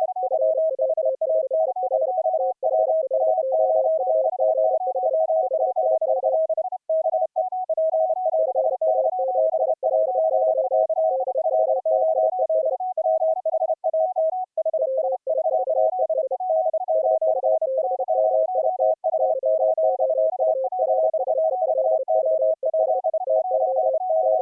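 Morse code audio from three operators sending at once, at three slightly different tone pitches, keyed rapidly and overlapping. The CW audio is mixed and relayed over an audio-over-IP link in full-duplex operation.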